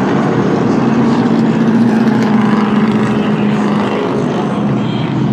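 NASCAR stock cars' V8 engines running on the track in a steady, loud drone that swells about two seconds in and slowly drops in pitch as the cars go by.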